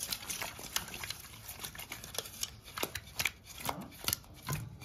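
Small bata fish being shaken and tossed in an aluminium bowl to coat them with salt and turmeric: a run of irregular knocks and slaps of the wet fish against the metal.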